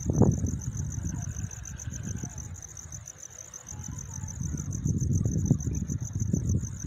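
Night insects trilling in a steady, fast-pulsing high chorus, over a low rumble of distant thunder that is strongest just at the start, dies down midway and swells again near the end.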